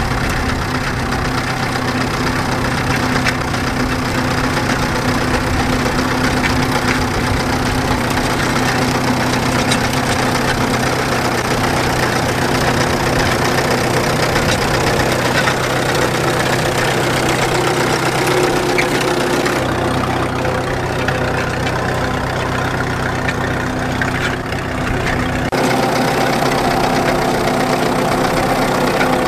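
Vintage steel-wheeled tractor engine running steadily under load while pulling a plough through stubble. The tone changes for a few seconds about two-thirds of the way through.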